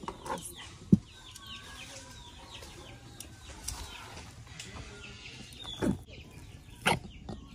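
Chickens clucking in the background, with a sharp knock of kitchenware about a second in and two more near the end.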